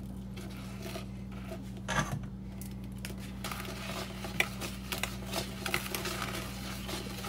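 Wire whisk clicking and scraping quickly against a plastic bowl, whisking hot milk into beaten eggs to temper them; the whisking starts about three and a half seconds in. A single knock comes about two seconds in, over a steady low hum.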